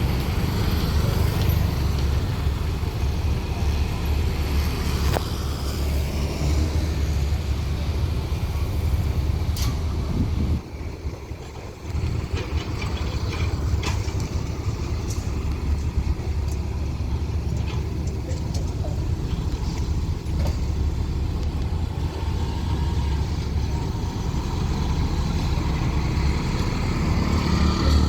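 Diesel engines of heavy earthmoving machinery running with a steady low rumble, which drops away sharply for a second or so about ten seconds in before resuming.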